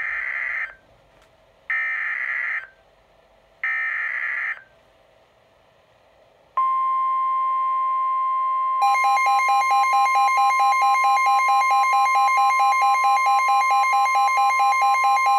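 NOAA Weather Radio SAME alert header: three short bursts of screeching digital data, then the steady warning alarm tone. About two seconds into the tone, the Midland WR-120 weather radio's own alert starts over it, beeping about three times a second.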